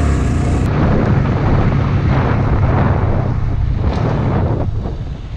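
Honda Grom's single-cylinder 125 cc engine running steadily as the bike rides along, under heavy wind buffeting on the microphone.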